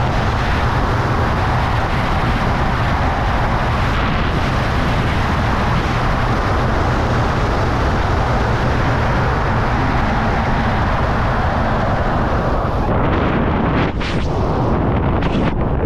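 Steady, loud rush of airflow buffeting the camera microphone during a wingsuit BASE flight, turning gusty and uneven near the end.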